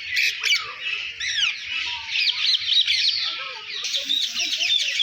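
Many small birds chirping and squawking at once, a dense, unbroken, overlapping chatter.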